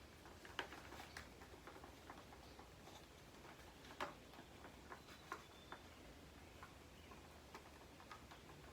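Faint, irregular clicks and taps of small hard parts being handled, about a dozen scattered through the stretch, the sharpest about four seconds in.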